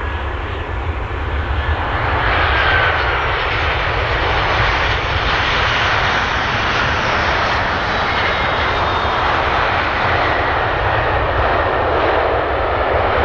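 Jet airliner engines of a Boeing 737-800 (CFM56-7B turbofans) running at high power, a loud continuous noise with a faint whine in it, building over the first two seconds and then holding steady.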